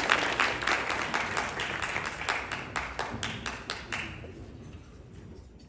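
Audience applauding, the clapping thinning to a few scattered claps and fading away near the end.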